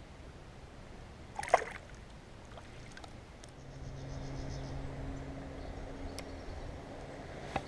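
A short splash of water about one and a half seconds in as a released perch is let go into the river. From about halfway through, a steady low hum runs under faint water noise, with a couple of small clicks near the end.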